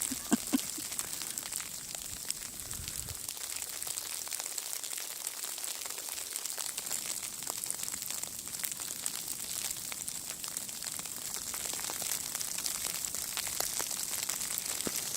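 Sleet falling and pattering, a steady hiss of many tiny ticks, with two short clicks about half a second in.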